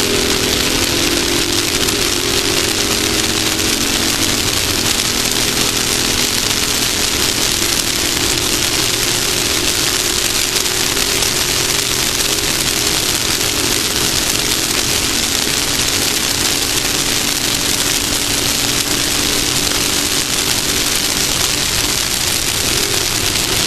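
Off-road race buggy's engine running steadily under a loud, even rush of wind and dirt noise on the vehicle-mounted camera; the engine tone fades about halfway through, leaving mostly the rushing noise.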